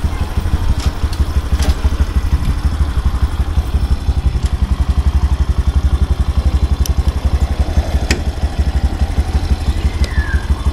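Motorcycle engine running at low revs and idling, with an even, rapid low throb.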